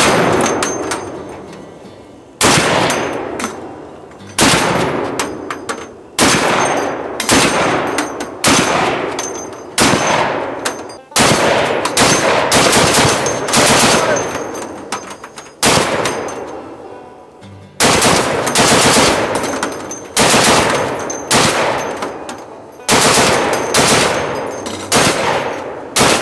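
Heavy .50-calibre machine gun firing in repeated bursts, a new burst every second or two, each sharp onset trailing off in echo.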